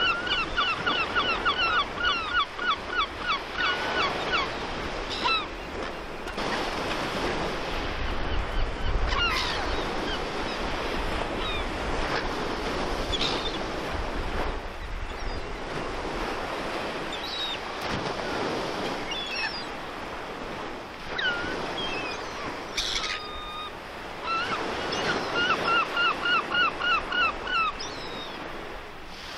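Surf and wind against the sea wall make a steady wash. Over it, gulls call, with two quick runs of rapid repeated calls, one at the start and one a few seconds before the end, and scattered single calls in between.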